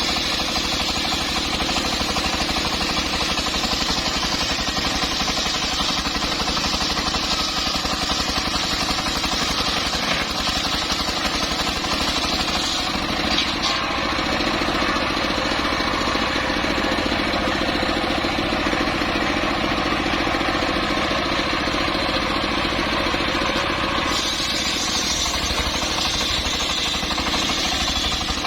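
Engine-driven homemade circular saw running steadily while sawing timber. The high saw tone shifts a few times as the cut goes on.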